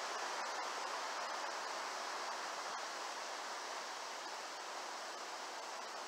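Shallow creek water running over stones, a steady rushing hiss.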